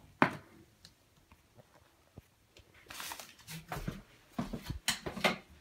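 A sharp knock just after the start, then from about three seconds in a run of short, irregular rustling and scraping sounds as pink fiberglass insulation is handled at a small opening in the wall.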